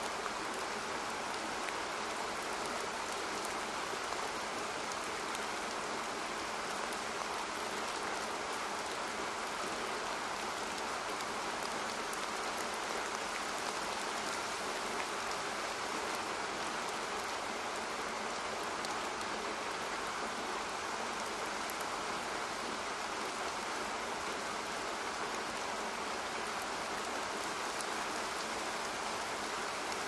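Steady rain, an even hiss of falling water with no rise or fall.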